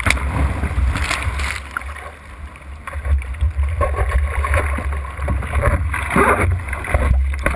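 Whitewater rushing and splashing over the nose of a surfboard, heard through a board-mounted GoPro's waterproof housing as a heavy low rumble with surges of spray noise. The sound dips briefly about two seconds in, then surges again.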